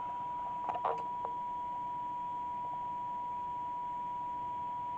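Steady 1 kHz test tone from a signal generator, heard over faint hiss through a CB radio receiver that is being tuned on a weak signal. A few small handling clicks about a second in.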